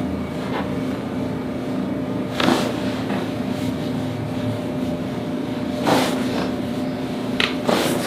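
A steady machine hum, with four short, sharp pops or knocks from a chiropractic adjustment on a treatment table: one about two and a half seconds in, one about six seconds in, and two close together near the end.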